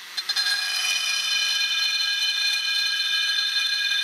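Carbide burr in a Foredom flex-shaft rotary tool grinding a two-stroke engine's aluminium crankcase, port matching the transfer ports to the cylinder base. It is a steady high-pitched whine, with a brief stutter just at the start as the burr bites.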